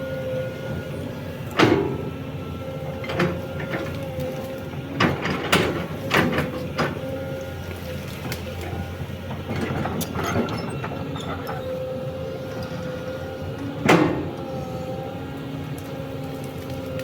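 Excavator running steadily with a held hydraulic whine, broken by irregular sharp knocks and cracks, the loudest near the end.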